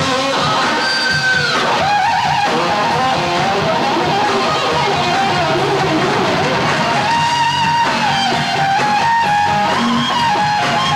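Heavy metal band playing live: distorted electric guitars over drums, with held guitar notes that bend in pitch.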